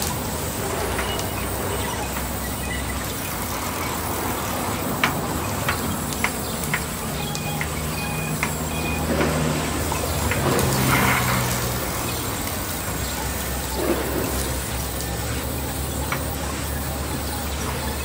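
Large vertical band saw running steadily while a wooden slab is fed through the blade, with scattered sharp knocks of timber being handled and a louder stretch of cutting about halfway through.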